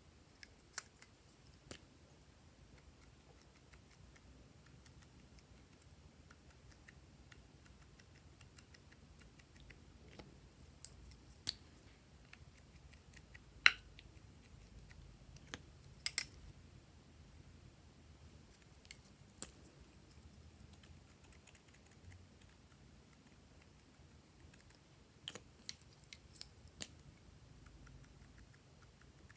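Scattered sharp clicks and snips over a faint steady background, about a dozen spread irregularly, the loudest about halfway through.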